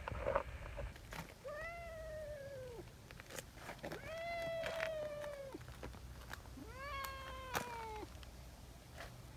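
Brown tabby cat meowing three times, long drawn-out meows of about one to one and a half seconds each, the pitch dropping at the end of each. A few short sharp ticks fall between and during the meows.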